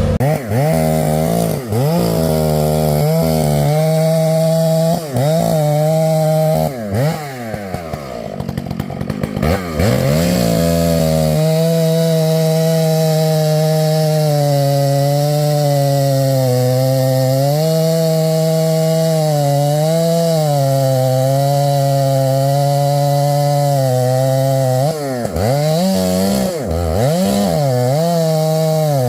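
Stihl two-stroke chainsaw revved up and down several times, then held at high throttle, its pitch sagging and recovering every few seconds as it cuts wood. A few more quick revs come near the end.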